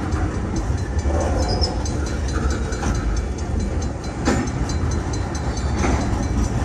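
Freight train hopper cars rolling past close by: a steady rumble of steel wheels on rail. A few sharp clanks come through, the loudest a little after four seconds in.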